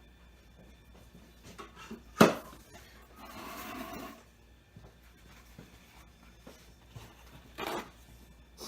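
A single sharp knock about two seconds in, then about a second of scraping or rubbing, and a shorter scrape near the end: handling and tool sounds.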